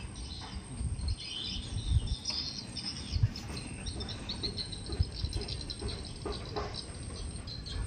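Small birds chirping in quick runs of short, high-pitched notes, over a low rumble with a few dull knocks.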